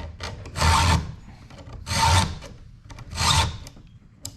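Hand file rasping across a ripping chain's cutter tooth during sharpening: three separate strokes, a little over a second apart.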